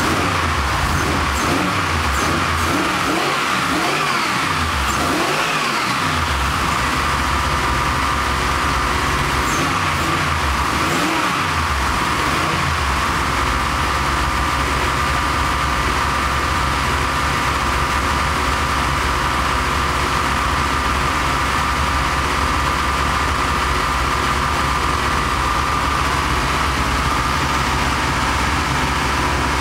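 Turbocharged Ford Modular V8 running on its first start-up. It is revved up and down repeatedly for the first dozen seconds, then settles to a steady idle, with a steady high whine throughout.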